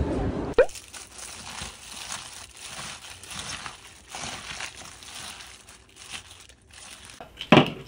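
A hand in a thin plastic glove mixes a bowl of cabbage, corn and macaroni salad with mayonnaise: irregular crinkling and squishing. There is a brief sharp sound about half a second in, and a louder knock near the end.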